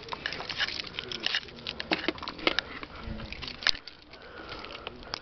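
Rustling and handling noise with many small clicks as a person climbs out of a car, a dull thump about three seconds in and a single sharp click just after it.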